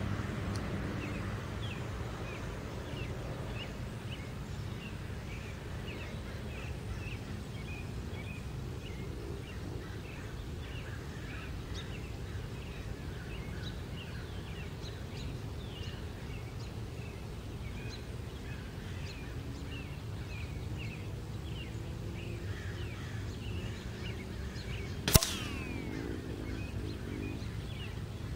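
A pellet strikes a thin aluminium can target about 25 seconds in: one sharp metallic ping with a brief falling ring. Around it, steady outdoor background noise with small birds chirping over and over.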